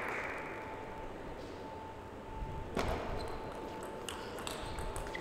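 Applause dying away, then a table tennis ball clicking off paddles and table in a short rally. The sharpest click comes a little under three seconds in, and several lighter ones follow quickly.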